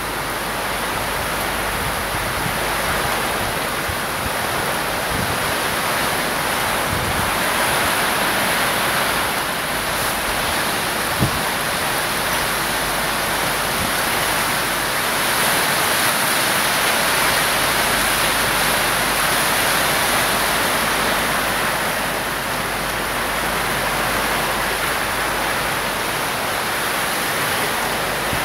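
Heavy rain pouring down in a steady, unbroken hiss during a storm, with one sharp click about eleven seconds in.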